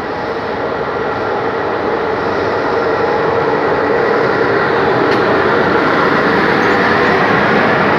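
CFR class 060-EA electric locomotive hauling a passenger train as it pulls into the platform and passes close by. Its steady hum and rolling wheel noise grow louder as it draws level.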